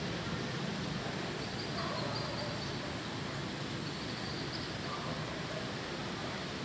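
Steady rush of river current running over shallow riffles, with a few faint short calls about two seconds and four seconds in.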